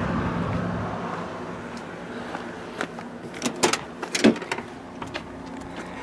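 A handful of sharp clicks and knocks from the driver's door of a first-generation Ford Explorer being opened and someone climbing in, after a steady noise that fades over the first two seconds.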